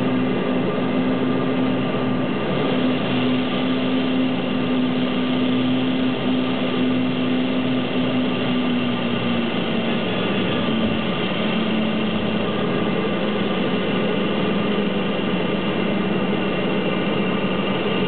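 Steady cabin drone of a Cessna Conquest's twin turboprop engines and propellers during the flare and landing roll. The main tone steps down in pitch about halfway through, as the power comes back once the aircraft is on the runway.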